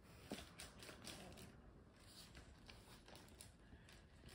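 Near silence: room tone with a few faint light ticks and rustles in the first second.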